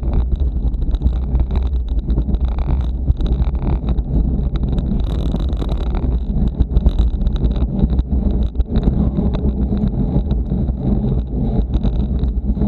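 Wind rushing over a bike-mounted camera's microphone while riding, with steady low rumble and many small knocks and rattles from the bicycle rolling over rough asphalt.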